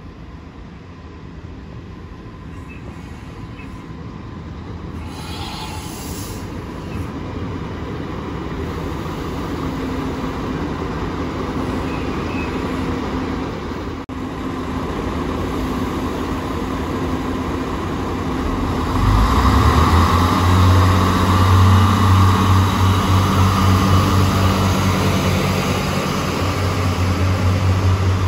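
Renfe Class 592 diesel multiple unit approaching, its noise growing steadily louder. About two-thirds in its diesel engines become sharply louder with a deep, pulsing note as it moves along the platform close by.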